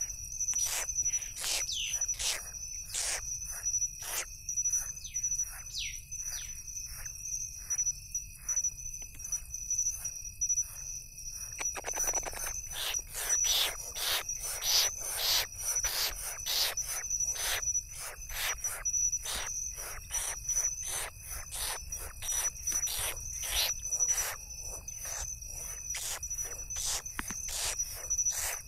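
Crickets and other insects calling: a steady high trill with a fast run of sharp chirps about three a second.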